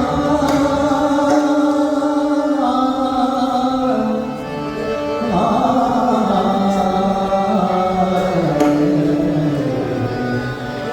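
Marathi devotional abhang music: long held melodic notes that step and glide slowly, with a few light percussive strokes.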